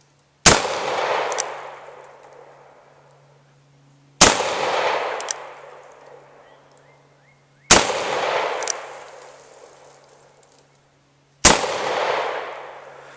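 Smith & Wesson Model 610 revolver firing 10mm rounds: four single shots, slowly spaced three to four seconds apart, each followed by a long echo and a fainter sharp crack about a second later.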